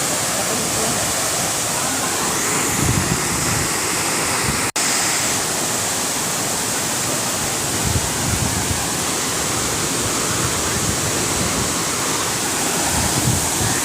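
A tall, heavy waterfall pouring into its pool: a steady, dense rush of water, broken once for an instant near the middle.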